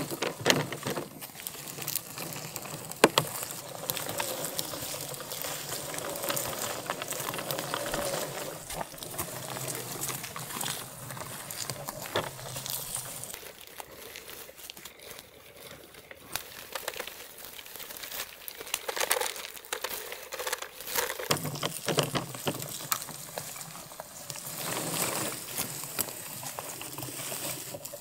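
Mammotion Luba 2 AWD robotic mower driving over forest ground with a branch caught across its front: twigs and dry leaves crackle and snap under its wheels in a stream of sharp clicks. It goes quieter for several seconds midway, then the crackling picks up again.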